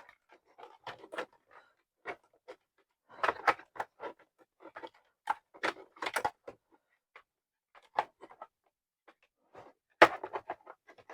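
Irregular clicks, knocks and clatter of a drill and its accessories being handled and packed back into their box, with a burst of louder knocks near the end.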